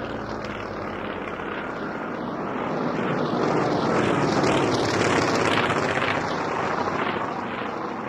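Four Polikarpov I-16 fighters flying past in formation, their nine-cylinder air-cooled Shvetsov radial engines running together. The sound swells to its loudest about halfway through and eases off as they pass.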